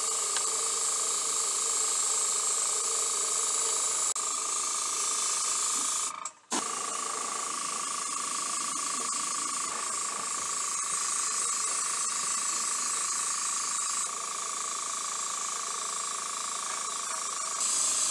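Airbrush hissing steadily as it sprays water-based black paint, with a steady whine underneath. The spray cuts off for a moment about six seconds in, then starts again.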